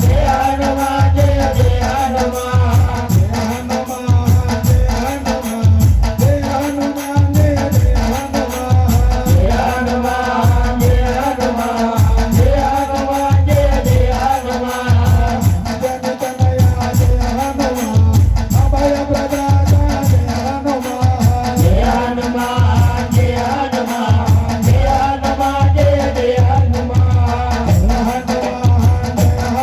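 Music with a steady, repeating drum beat under a melody that bends in pitch.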